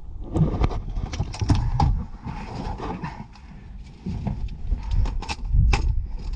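Irregular thumps and clatter of footsteps and rattling gear, with heavy low thuds and sharp clicks, loudest near the start and again about five seconds in.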